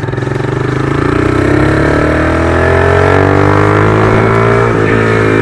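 Honda CG 150 Start motorcycle's single-cylinder four-stroke engine pulling away under throttle, its pitch and loudness climbing over the first second or two, then holding steady, with a short break in the pitch near the end.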